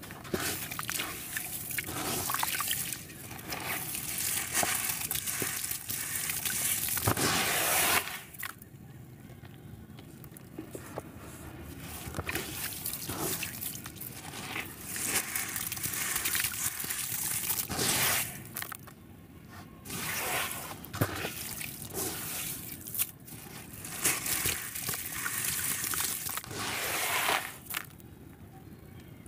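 A wet sand-and-cement ball crushed and rubbed by hand under water, gritty grains crunching and grinding while the water sloshes and trickles. It comes in spells of several seconds broken by short pauses.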